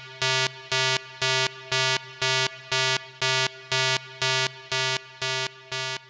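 Electronic synth tone pulsing about twice a second, each pulse the same buzzy pitch, with a fainter tone held between pulses; the pulses get a little quieter near the end.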